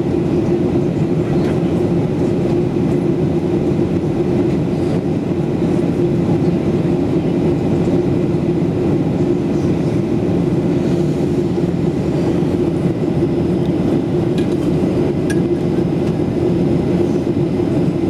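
Steady drone of a Boeing 737 airliner's cabin in flight, the jet engines and the airflow over the fuselage heard from a window seat. The aircraft is descending toward landing. A strong low hum sits under the rush, and there are a couple of faint ticks.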